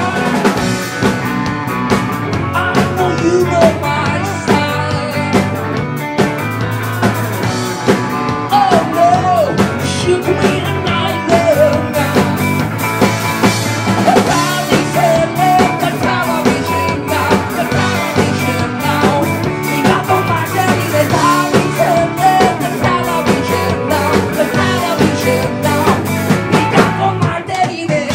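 Rock band playing live: electric guitar and drum kit driving the song, with a lead singer's vocals on top.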